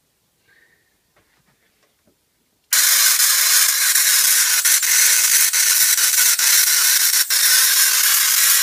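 Home-built Tesla coil, fed from a ZVS-driven flyback at 54 volts, switching on about two and a half seconds in: a sudden, loud, steady hissing crackle of spark streamers from the top of the coil, with a few sharper cracks.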